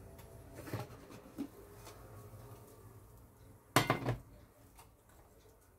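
A frying pan and its stainless steel lid clinking as a tortilla is turned out onto the lid: a few light clinks, then one louder metallic clank about four seconds in.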